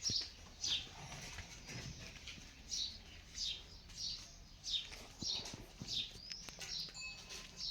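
A bird chirping repeatedly, short calls that fall in pitch, one or two a second, with a rising note about six seconds in.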